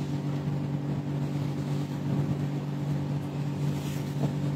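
Steady low hum with two held tones and a faint hiss, unchanging throughout.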